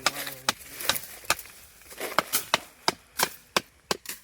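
A blade chopping into wood and brush over and over, sharp separate strikes about two to three a second, as land is cleared by hand.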